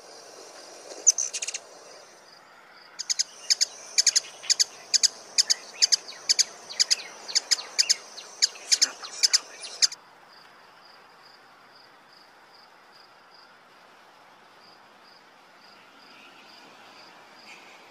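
Played-back recording of hummingbird chirps used to call in a ruby-throated hummingbird: a short flurry of sharp, high chirps about a second in, then a regular run of about two chirps a second that cuts off abruptly midway. Crickets chirp steadily underneath.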